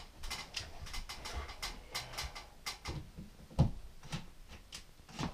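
Scattered light clicks and knocks of a hand-held battery tool being handled and tried, with no motor running: its battery is flat. One louder knock comes about three and a half seconds in.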